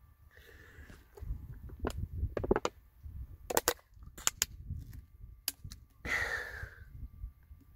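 Thin plastic water bottle crinkling and crackling in the hand as it is drunk from, in several quick clusters of sharp crackles. About six seconds in comes a loud breathy exhale after the drink, over a low wind rumble on the microphone.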